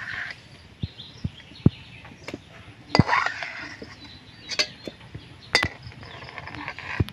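A steel ladle clinks and scrapes against a steel wok and bowl as boiled taro flowers are scooped out of their cooking water. There are scattered sharp clinks, the loudest about three seconds in, with brief sloshing of the water between them.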